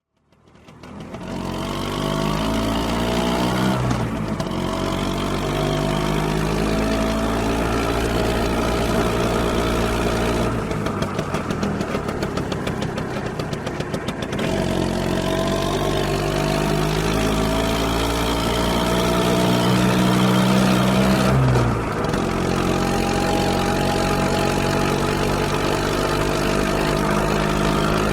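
Small motor scooter engine riding along, its note climbing slowly in pitch as it accelerates and dropping back twice. Around the middle there is a rougher stretch of a few seconds with no steady engine note, as if off the throttle, before it picks up again.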